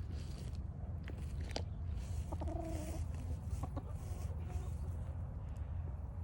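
Chickens clucking, with one short drawn-out call about two and a half seconds in, over a steady low rumble.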